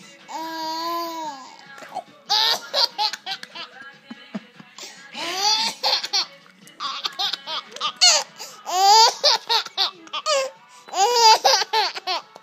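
Toddler laughing hard in repeated bouts of giggles and high squeals, one bout after another.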